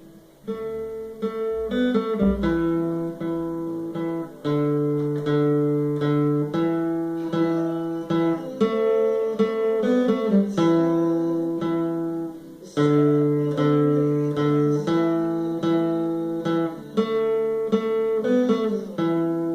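Acoustic guitar strumming chords, each struck sharply and let ring for about a second before the next, in a repeating progression. The playing breaks off briefly about two-thirds of the way through, then starts again.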